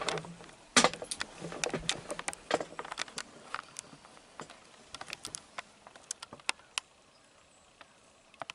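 Quick irregular clicks and taps of hunting gear being handled while getting ready to shoot, thinning out and stopping after about seven seconds.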